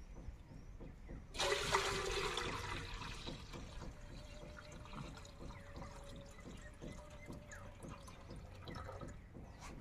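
Water poured off boiled eggs from a tilted aluminium pot: a sudden gush about a second and a half in, fading over a couple of seconds into a thin, steady trickle.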